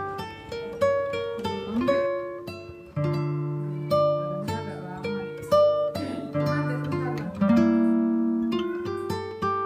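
Background music on an acoustic guitar: single plucked notes and chords, each struck sharply and left to ring and fade.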